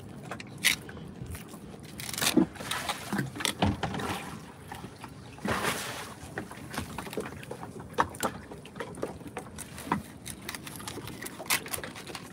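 Fillet knife slicing and scraping along the backbone of a small yellowfin tuna: a string of irregular scrapes and clicks, over a steady background of water around a boat.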